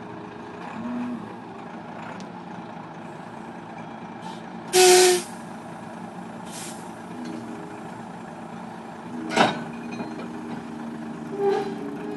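Large forklift's engine running as it creeps up to a railroad flat car, with one loud, short hiss about five seconds in and a sharp knock about nine seconds in.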